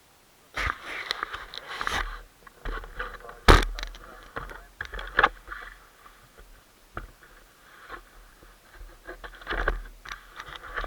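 Irregular scraping and rustling with a low rumble, and one sharp knock about three and a half seconds in.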